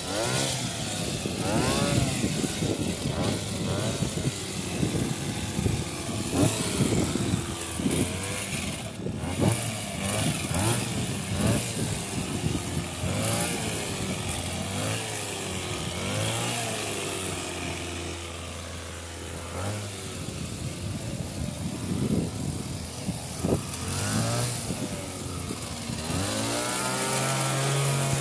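Two-stroke petrol hedge trimmer running while cutting a hedge, its engine revving up and falling back over and over as the throttle is worked, settling to a steadier lower note near the end.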